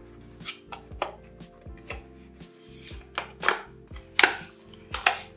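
Cardboard box being opened by hand: a run of sharp card clicks and taps as the flap is worked, a short scrape about halfway, and the loudest snaps near the end. Quiet background music underneath.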